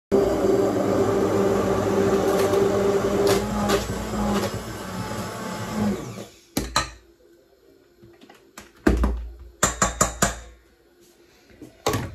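Hand-held immersion blender running in a stainless steel bowl, puréeing cooked tomatoes and onions with a steady motor hum for about six seconds, then switched off. Several sharp knocks and clunks follow, the loudest a low thump about nine seconds in.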